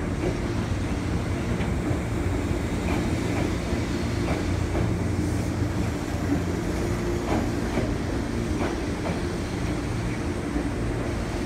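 205-series electric commuter train moving slowly along the platform: a steady low rumble and hum, with irregular clacks as the wheels pass over rail joints.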